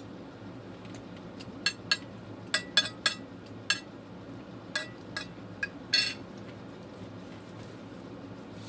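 Cutlery clinking against a dish while eating: about ten sharp clinks in the middle few seconds, then only room hum.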